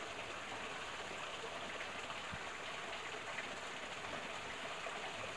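Small forest stream trickling steadily into a pool: an even, low hiss of running water.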